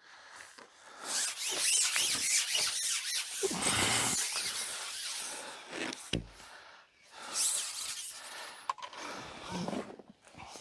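Rubbing and rasping from a carbon fishing pole sliding through the angler's hands as he works it out to the spot, in three long stretches, with a single knock just after six seconds in.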